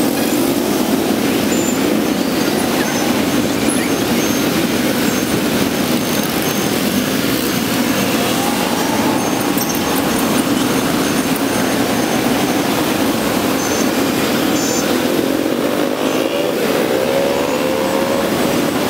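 Dense motorbike and scooter traffic streaming past: a steady, loud wash of many small engines running together, with single bikes rising in pitch as they accelerate through, most clearly near the end.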